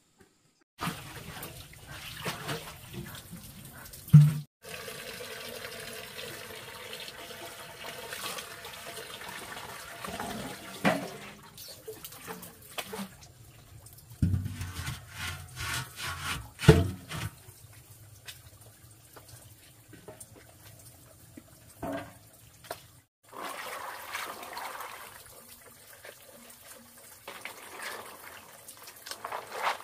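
Water running and splashing, with scattered knocks and thuds; the sound breaks off sharply a few times where the footage is cut.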